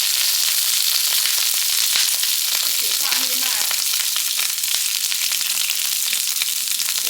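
Food frying in a hot pan: a steady, loud sizzle full of fine crackles and pops of spitting oil.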